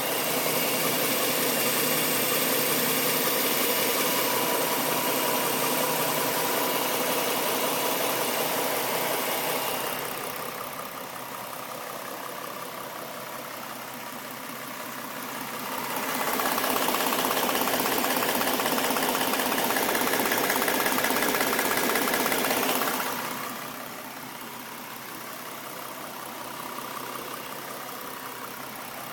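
2011 Ford Mustang 3.7-litre V6 idling, louder for stretches and quieter in between; the owner suspects it is knocking at idle, with a knock from the passenger-side cylinder head and injector ticking on the other head.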